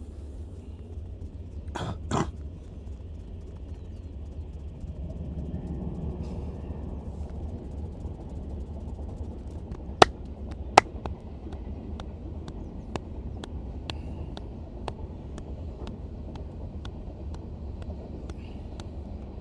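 Head and neck massage sounds: two dull hits about two seconds in, two sharp, loud cracks about ten seconds in, then light clicks about twice a second, over a steady low rumble.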